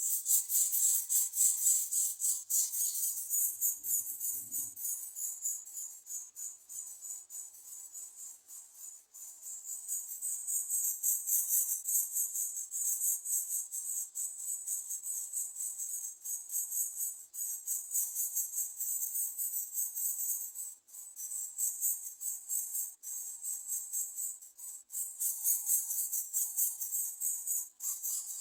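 Dense, shrill insect chorus: a continuous high-pitched trilling that swells and fades in loudness.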